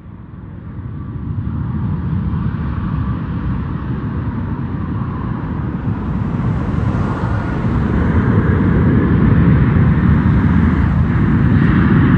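WestJet Boeing 737's CFM56 turbofan engines spooling up to takeoff thrust: a rumbling jet roar with a rising hiss above it. It grows louder about a second in and again after about six seconds.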